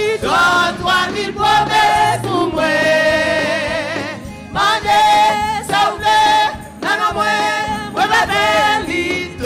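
Church worship singing: voices sing a gospel praise chorus in long held notes over a steady instrumental accompaniment.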